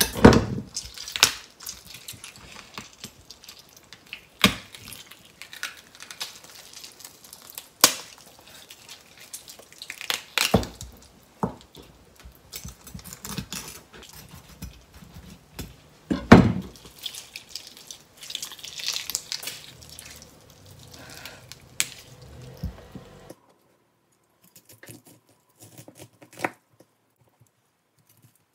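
Kitchen knife cutting boiled pig's trotters on a plastic cutting board: irregular sharp knocks of the blade striking the board, the loudest about halfway, with softer cutting and handling sounds between them. The sound stops about three quarters of the way through, leaving only a few faint clicks.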